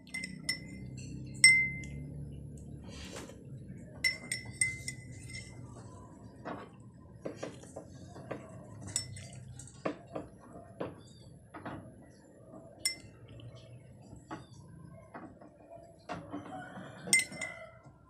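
Metal spoon stirring coffee in a ceramic mug, clinking against the mug at irregular intervals. The clearest, ringing clinks come about a second and a half in, around four seconds in and near the end, with lighter taps between.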